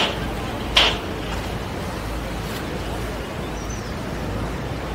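Steady low rumble of a tour boat's engine and the water under way. Two short sharp high sounds come right at the start, less than a second apart.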